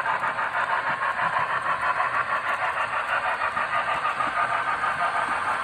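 Model Union Pacific 844 steam locomotive's sound unit chuffing rapidly and evenly, about five beats a second, as the train runs past.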